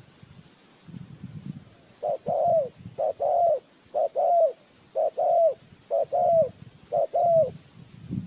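Spotted dove cooing: six two-part coos in a row, about one a second, each ending in a falling note.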